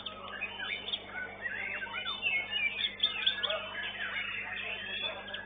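White-rumped shamas (murai batu) singing in competition: a dense tangle of varied whistles, chirps and quick rising and falling notes from several birds at once, over a steady low hum.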